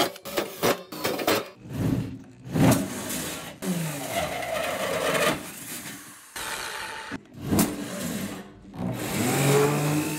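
Power drills boring into thin stainless steel sheet: a drill bit cutting a pilot hole, then a 30 mm carbide hole saw grinding its way through the metal. The noise comes in short bursts that start and stop abruptly, with the motor's whine rising and falling near the end.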